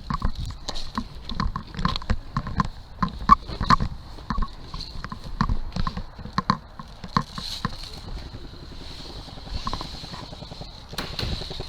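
Footsteps and rustling through woodland undergrowth: irregular crunching steps, two or three a second, thinning out after about eight seconds. A quick run of rapid ticks comes near the end.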